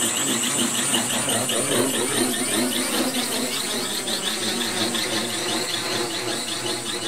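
Quad motors and propellers of a Skywalker X8 VTOL quadplane conversion running as it lifts off in copter mode without its wings: a steady high whine over a buzz whose pitch wavers rapidly up and down. The wavering goes with severe roll and pitch oscillation, which the builder puts down to the default quadplane PID gains being far too high for the wingless airframe.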